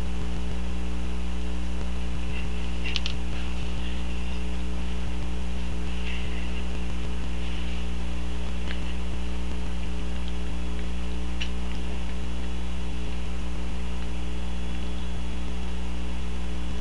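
Steady electrical mains hum throughout, with a few faint short smacking sounds from a small dog licking a sticky mix of peanut butter and marshmallow cream off a plate.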